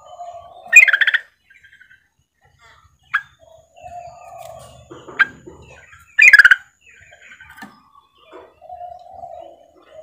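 Female yellow-vented bulbul (trucukan) calling: two loud, rapid chattering calls about a second in and about six seconds in, with two short sharp notes between them. This is the female's call to a male.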